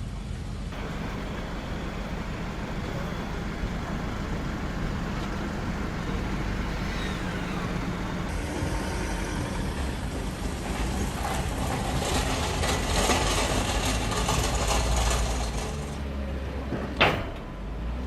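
Lexus LX SUV running, a steady low hum that grows louder from about twelve to sixteen seconds in, then eases off. A single sharp knock comes near the end.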